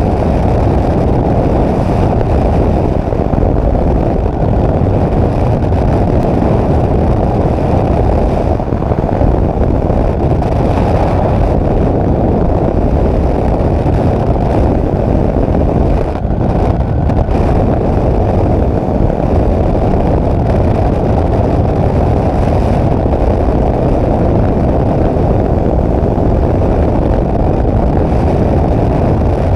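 Steady rush of wind on the microphone in the open cockpit of a flex-wing microlight trike in flight, with the engine's drone underneath. It dips briefly about halfway through.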